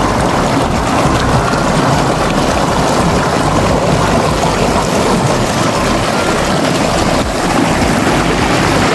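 River water pouring over a low concrete weir close by: a loud, steady rush of white water.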